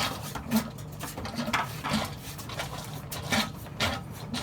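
A hand-operated fluid transfer pump being worked to suck water out of a washing machine drum: short, sharp pump strokes with water drawn through, at an uneven pace of about one every half second to second, over a steady low hum.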